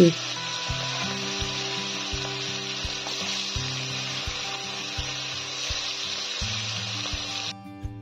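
Pieces of katla fish frying in hot vegetable oil in a kadai: a steady sizzling hiss that cuts off suddenly near the end. Slow background music plays under it.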